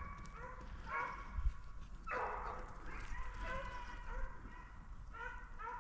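A pack of deer hounds giving tongue on a chase: several dogs bay and bark in repeated short calls that overlap, with one harsher, louder call about two seconds in.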